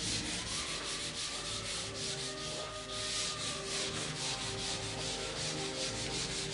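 Whiteboard eraser rubbed back and forth across a whiteboard in quick, even strokes, several a second, wiping off marker writing.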